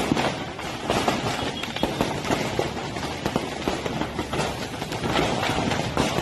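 Firecrackers going off in a rapid, irregular string of cracks and pops over a constant noisy din.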